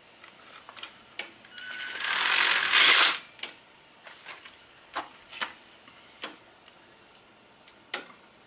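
Scattered sharp clicks and clinks of metal tools and bolts being handled. A louder, noisy sound about two seconds in lasts about a second.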